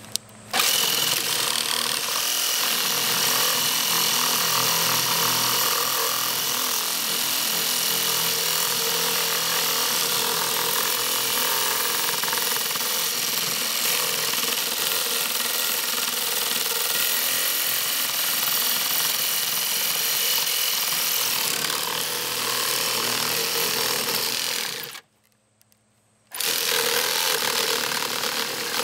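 Electric power saw running and cutting through a plastic tube packed with magnets and hard filler. It runs steadily, stops for about a second near the end, then starts again.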